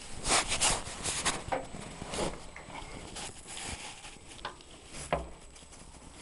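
Rustling and a few light metallic knocks from someone moving about and handling the camera inside the armoured car's turret. The rustles are loudest in the first couple of seconds, and two sharp knocks come near the end.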